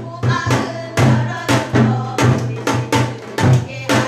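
Korean folk-song (minyo) performance: a janggu hourglass drum beats a steady, quick rhythm of strokes, with women's voices singing over it.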